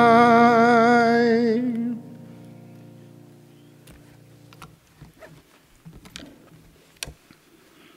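Hymn singing ending on a long held note with vibrato that stops about two seconds in, while an accompanying instrumental chord lingers and fades out. A few soft knocks and shuffles follow.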